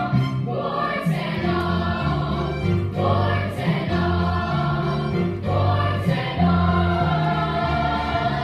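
A group of voices singing a musical-theatre song over an instrumental accompaniment, with a bass line stepping from note to note underneath.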